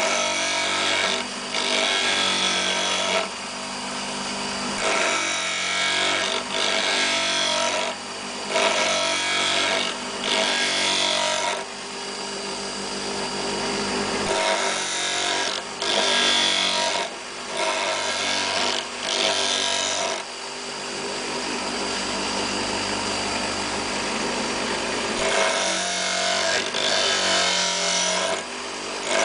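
Electric grinder running while a twist drill bit held in a pivoting sharpening arm is passed against the grinding wheel. The grinding noise swells with each pass and eases between them, every second or two, with a couple of longer, quieter spells.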